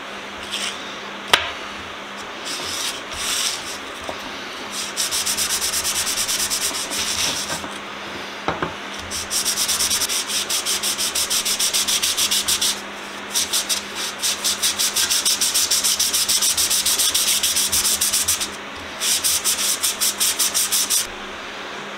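A small brass plate being rubbed by hand on a sheet of sandpaper laid flat on a workbench. The strokes are rapid and back and forth, about four a second, in several long runs with short pauses between them. A single sharp knock comes just over a second in.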